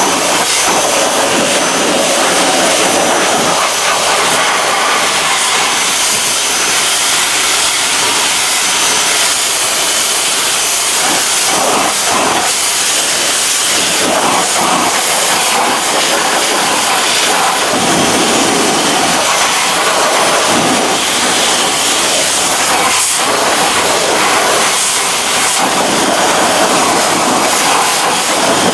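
Pressure washer jet spraying water onto a car's alloy wheel and tyre: a loud, steady hiss of spray and spatter, its texture shifting as the wand moves over the wheel.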